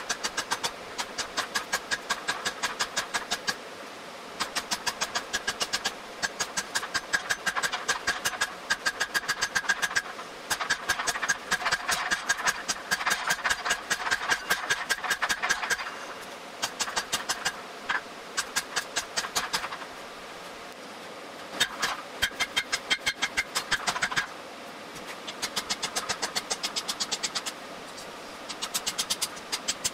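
Hand hammer striking hot steel sheet on an anvil, forging a flower petal: quick, even blows several per second, in runs broken by short pauses.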